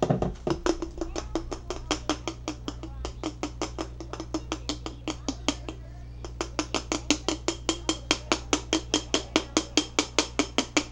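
Glitter container shaken over a jar in quick, even strokes, each stroke giving a sharp tap, about five a second, with a short pause about halfway through.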